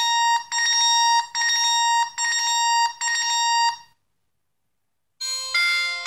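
A Banaus B2 smartwatch's built-in speaker plays a notification-tone preview: a bright electronic chime repeated about five times, roughly once a second, at the watch's maximum notification volume, which the owner thinks makes the tones distorted. After a short pause, a different, lower-pitched notification tone starts about five seconds in.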